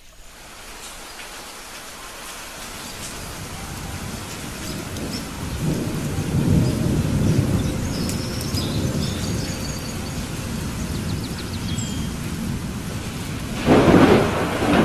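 Rain falling steadily through a thunderstorm. A low rolling rumble of thunder builds about five seconds in and lasts several seconds, then a sharper, louder thunderclap comes near the end.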